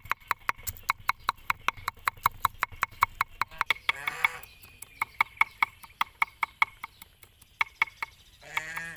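Kitchen knife chopping garlic cloves on a wooden cutting board: quick, regular knocks of the blade on the board, about five a second, with a couple of brief pauses.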